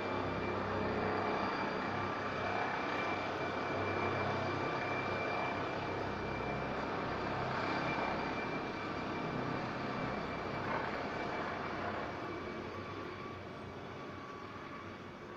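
Helicopter flying overhead: steady rotor beat with a high turbine whine, easing off over the last few seconds as it draws away.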